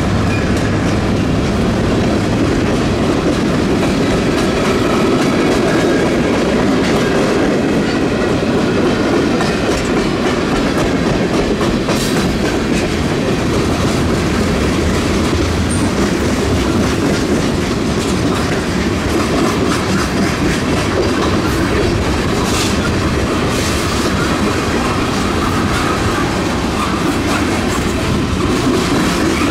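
Freight train cars, tank cars and covered hoppers, rolling steadily past, their steel wheels clickety-clacking over the rail joints with a continuous loud rumble. A few sharp high clicks cut through about a third of the way in and again later.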